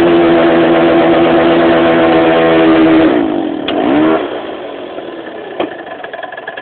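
Yamaha BW's NG scooter's 50cc two-stroke engine held at high revs. About three seconds in the revs fall away, and just after four seconds it settles to a quieter idle.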